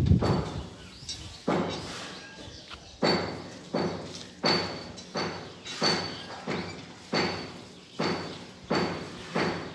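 A regular series of thuds, each a sharp knock that dies away quickly. They come about once every three-quarters of a second, more sparsely in the first few seconds.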